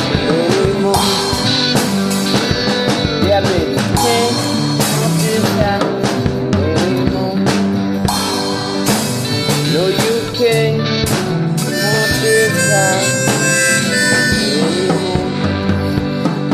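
Blues-rock instrumental break: a harmonica solo with bent notes over the band's backing and steady drum hits.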